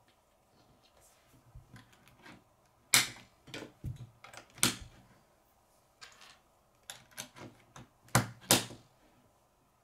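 K'nex plastic rods and connectors clicking as they are snapped together and handled on a wooden tabletop: an uneven run of sharp clicks, the loudest about three seconds in and a close pair near the end.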